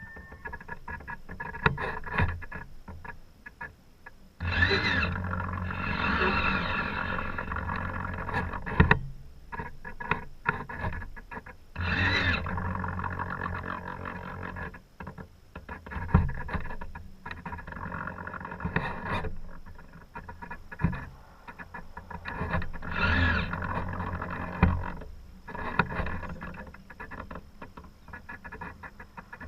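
Wind buffeting and water rushing past a GoPro microphone aboard a racing sailboat. The noise rises and falls in gusts, with loud surges several times.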